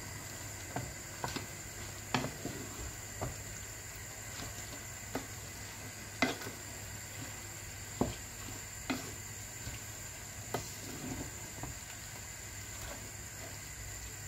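A wooden spatula stirring and turning purslane, rice and tomatoes in a nonstick pot, giving irregular soft scrapes and taps against the pot about once a second.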